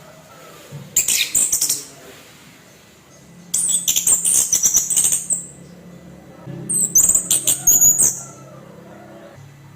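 Orange-headed thrush singing its harsh 'kasar' song: three bursts of high, scratchy, clicking phrases, each one to two seconds long, with pauses between them.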